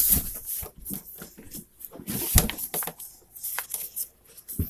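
Irregular knocks, clicks and rustling from unpacking a cardboard box with styrofoam packing, with a couple of dull thuds.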